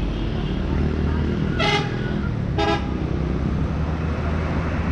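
Two short vehicle-horn toots about a second apart, over the steady low rumble of a running engine.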